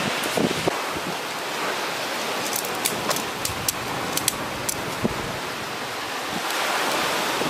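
Steady wash of surf and wind noise. In the middle, a quick run of about eight light clicks as tent pole sections are fitted together.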